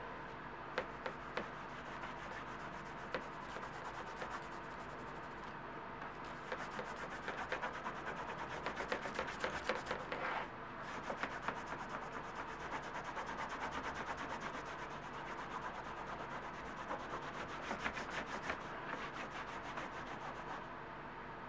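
Cloth rubbing back and forth on a veg-tan leather belt strap, working in saddle butter conditioner: quick, scratchy strokes that grow stronger toward the middle, break off briefly, then carry on. A few light clicks about a second in.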